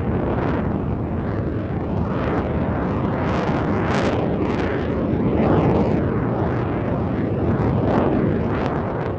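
Loud jet aircraft engine roar, a dense rumble that rises and falls with repeated sweeps.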